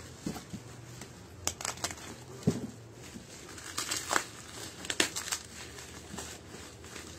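Plastic bubble wrap crinkling and rustling as it is pulled off and unwrapped by hand, with scattered sharp crackles.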